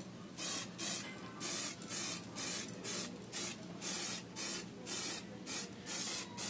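Aerosol spray can of clear coat hissing in short bursts, about two a second, laying down a light first coat of clear.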